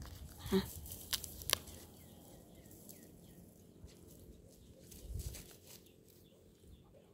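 Quiet outdoor ambience: a few sharp clicks or knocks in the first second and a half, then a faint run of short bird chirps, with a couple of soft low thumps about five seconds in.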